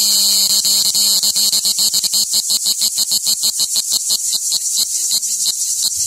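Cicada singing in a fast train of rapid buzzing pulses, a broken pulsing song typical of a cicada warming up from a cold start.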